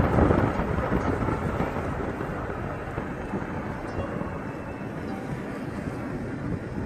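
Wind rush and road noise inside a moving car on a mountain road, loudest at the start and easing to a steadier rumble.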